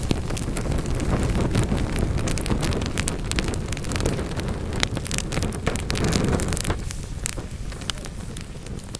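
Wood fire burning in a fireplace: a steady low rumble of flame with dense crackling and frequent sharp pops from the logs, easing a little near the end.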